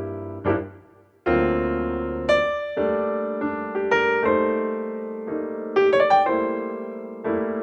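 Background piano music: notes struck and left to ring, with a brief pause about a second in and a quick run of high notes near six seconds.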